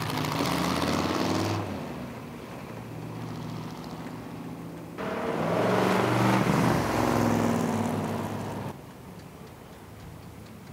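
The 1950 Allard J2's large American V8 is running as the car drives past at low speed. Its engine note swells and falls, loudest during a close pass about halfway through. The sound changes level abruptly a few times where the footage is cut.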